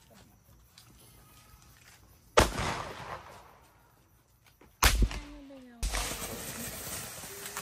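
Two sharp firecracker bangs about two and a half seconds apart, each fading away, then a ground firework starts spraying sparks with a steady hiss a little before the end.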